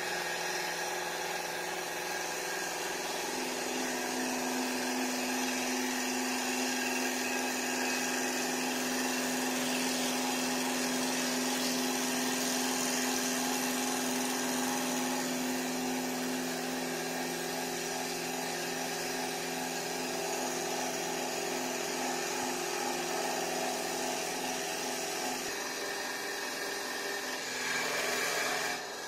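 Single-head CNC wood lathe (Đông Phương MC3015) turning a wooden blank: the machine runs with a steady hum and whine over the continuous noise of the cutter shaving the spinning wood. A deeper steady tone joins in about three seconds in.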